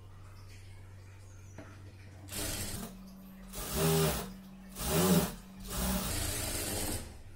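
Industrial single-needle lockstitch sewing machine run in four short bursts of stitching, speeding up and slowing down each time, with a low steady hum in between, while a folded sleeve hem is sewn.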